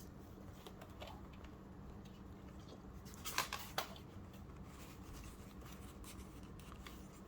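Paper being handled and trimmed, with faint rustling and two short, crisp cutting sounds about three and a half seconds in.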